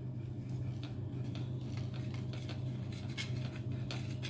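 Soft homemade cheese being grated on a flat stainless-steel rasp grater, with short, irregular scraping strokes a few times a second. A steady low hum runs underneath.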